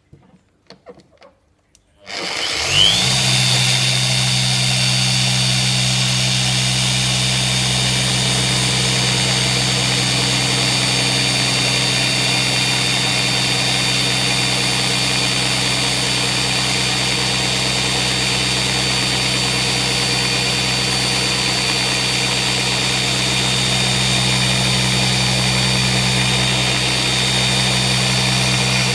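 A few faint clicks, then a Zentool mini polisher with a 3-inch pad spins up about two seconds in, rising briefly in pitch, and runs at a steady speed as it machine-polishes a sanding mark out of car paint.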